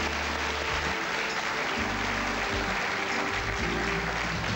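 Studio audience applauding while the show's closing music plays, with a bass line that changes note every second or so under the clapping.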